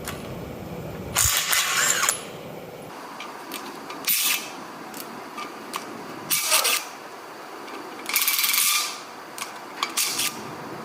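A power tool run in four short bursts, taking out the bolts on top of a Case 310G bulldozer's transmission case, with small sharp metal clicks in between.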